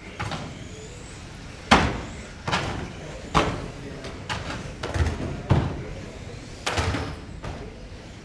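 Sharp clattering knocks of 1/12-scale electric RC racing cars striking the plastic track barriers, about eight in quick irregular succession, the loudest about two seconds in.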